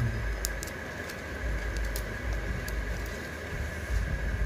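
Smartwatch box packaging handled and pulled apart by hand: a few light clicks and rustles of cardboard, over a low handling rumble and a steady background hum.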